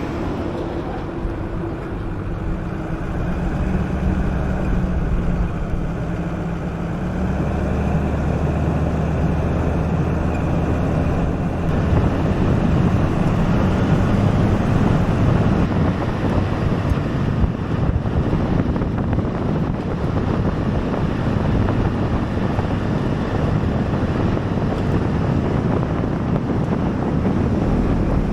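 Pickup truck driving on a road: steady engine running with road and wind noise, the engine note stepping to a new pitch a few times and growing louder partway through.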